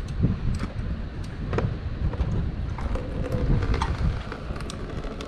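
Low rumbling noise on the microphone, with a few light clicks and knocks as a metal socket and extension are set down on a concrete floor and a plastic catch bowl is handled.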